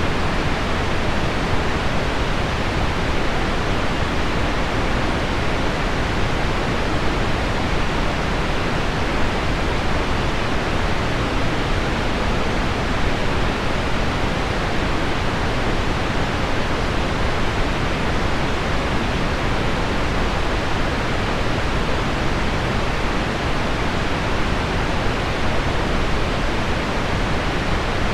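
Steady, even rushing noise: heavy rain on window glass blended with deep pink noise, with no single drops or gusts standing out.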